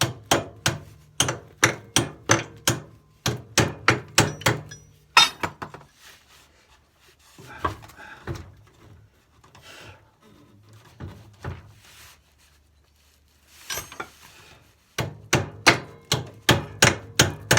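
Hammer beating on the end of a tractor-frame bolt that is capped with a nut to keep its threads from mushrooming. A quick run of sharp blows comes about three a second, then a quieter stretch of several seconds with a few softer knocks, and fast blows start again near the end.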